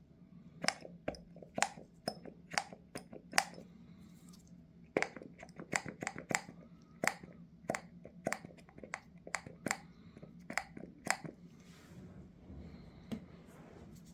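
Light, sharp clicks and taps of small metal tools and carburetor parts being handled on a workbench during disassembly. A handful come in the first few seconds, then a denser run from about five to eleven seconds in, over a faint steady low hum.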